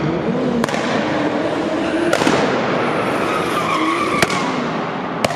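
Race car engine running with a wavering, rising and falling pitch over a loud rushing noise, broken by four sharp cracks.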